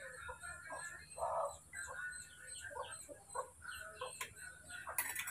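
Chickens clucking, mixed with short high chirps, and a few light clicks of a spoon scooping milk powder.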